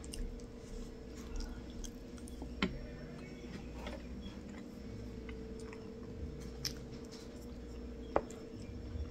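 Close-up chewing and wet mouth sounds of someone eating a soft rice dish in sauce, with a wooden spoon scraping against a plate. Two sharper clicks stand out, one about two and a half seconds in and one near the end.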